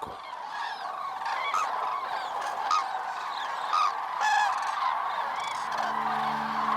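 A large flock of common cranes calling in flight, many overlapping calls at once. Soft music comes in near the end.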